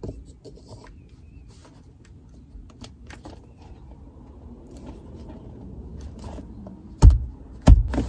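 A replacement gear knob being worked onto the manual shift lever of a BMW E90: small clicks and rubbing of plastic on the lever, then two hard thumps a little under a second apart near the end as the knob is pressed home.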